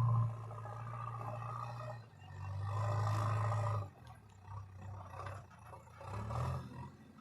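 JCB 3DX backhoe loader's diesel engine revving as the machine works. It eases off just after the start, climbs back to high revs for about a second and a half in the middle, then drops to a lower, uneven run.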